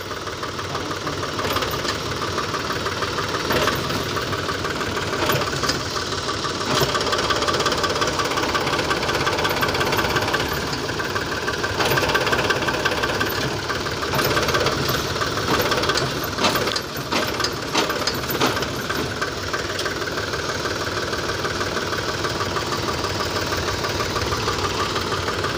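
Force Sanman 5000 tractor's diesel engine running steadily, with the tractor stuck in soft soil under a heavily loaded tipping trolley. A cluster of sharp clicks about two-thirds of the way through.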